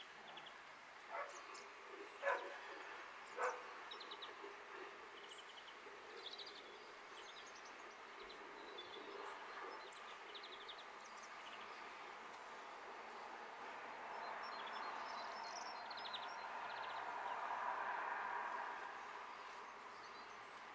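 Small British garden birds chirping and calling in short high chips and brief trills. Three louder, sharp calls come about a second apart in the first few seconds, and a broad distant rushing noise swells and fades in the second half.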